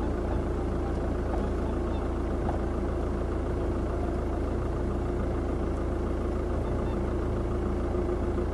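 Car engine idling: a steady low hum with a constant mid-pitched drone over it, unchanging throughout.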